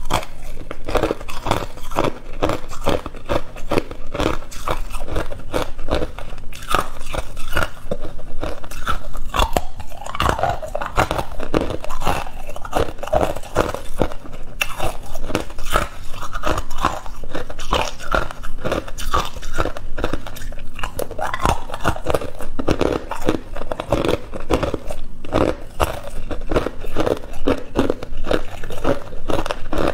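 Hard ice cubes crunched and chewed between the teeth, a rapid run of sharp cracks and grinding that keeps going without a break.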